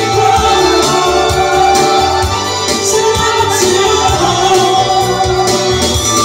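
A woman and a man singing a duet into microphones over a loud backing track with a bass beat, amplified through the bar's sound system.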